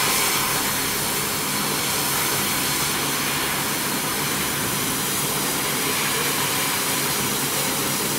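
150 W CO2 laser cutting machine cutting 5 mm plywood: a steady rushing hiss of air with a faint low hum underneath.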